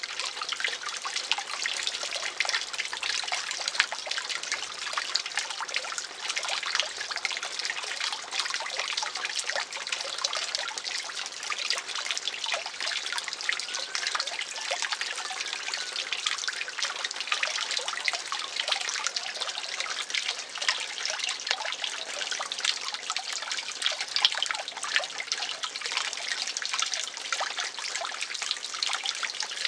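Steady trickling and splashing of garden fish-pond water, a dense patter of small splashes and drips.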